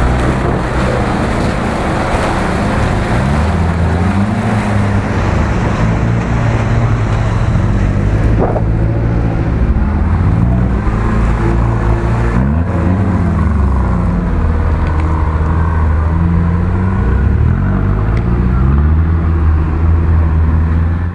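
Off-road 4x4 engines running hard and revving up and down again and again as the vehicles work through deep mud ruts.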